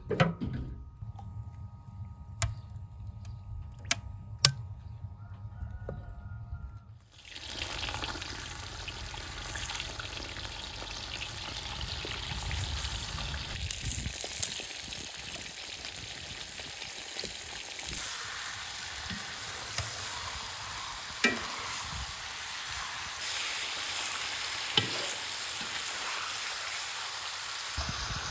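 Meat sizzling as it fries in hot fat in a cast-iron pot over a wood fire: a steady sizzle that starts suddenly about seven seconds in, with occasional sharp ticks as pieces go in. Before it, a low rumble with a few sharp knocks.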